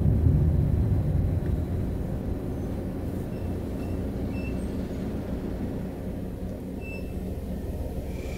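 Low rumble of road traffic: a vehicle passes close and fades off over the first few seconds, leaving a steadier, quieter rumble. A few faint short high chirps sound over it.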